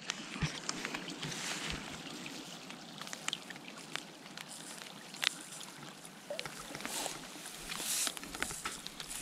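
Kayak being paddled: water splashing and dripping off a double-bladed paddle, with scattered sharp ticks of drips and light swells of splash as each stroke goes in.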